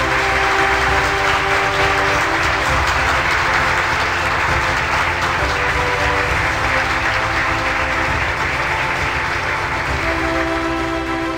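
Audience applauding over background music, the clapping fading toward the end.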